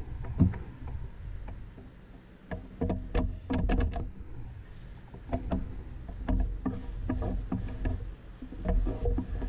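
Small hand tools clicking, tapping and scraping against a ZF five-speed transmission case, in irregular sharp clicks over a steady low rumble.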